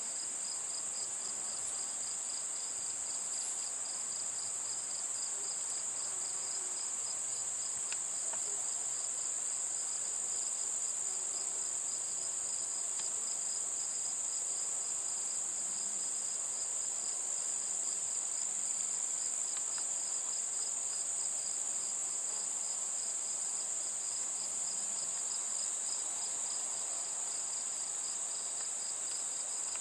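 Chorus of crickets and other insects singing: a steady high trill over an evenly pulsed, slightly lower chirping that keeps going without a break.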